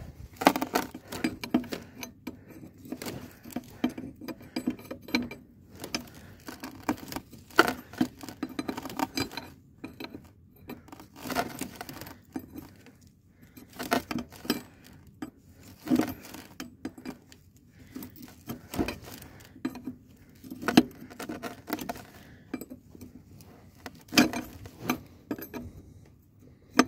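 Metal hand tools and loose steel parts clinking and knocking irregularly, during work on a trailer axle's brake chamber.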